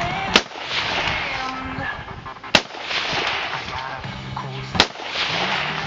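Three rifle shots from a scoped AR-style semi-automatic rifle, about two seconds apart, each trailing off in a short echo.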